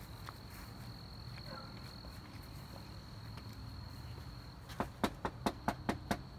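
A cricket's steady high trill that stops about four and a half seconds in, then seven quick knocks on a front storm door near the end.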